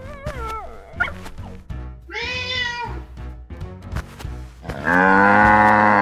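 Cartoon animal sound effects over background music: a wavering whine at the start, a short cat meow about two seconds in, and a long, steady cow moo near the end, the loudest sound.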